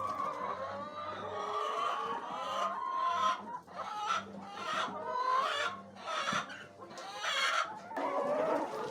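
Domestic chickens clucking, many overlapping calls from a flock.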